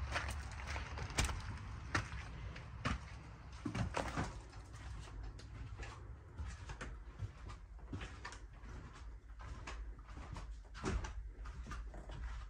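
Footsteps and knocks as someone steps into a mobile home and walks across its floor, with the door knocking about a second in; the knocks come irregularly, about one or two a second.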